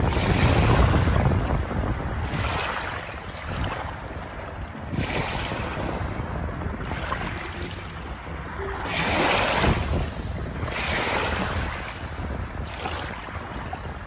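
Small waves washing in and out over a shallow pebble-and-shell shore, the hiss swelling and fading every two to three seconds. Wind buffets the microphone near the start.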